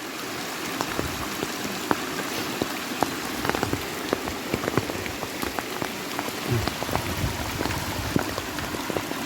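Rain falling steadily: an even hiss with many sharp taps of drops striking close by.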